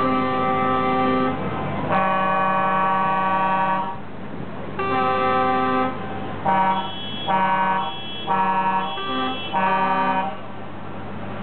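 Truck air horn sounding a tune: three long blasts at different pitches, then a quick run of short blasts, the pitch changing from note to note.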